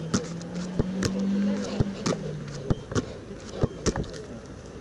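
A football slapping into hands and against the turf during goalkeeper catching practice: about nine sharp, irregular thuds. A steady low hum runs through the first half.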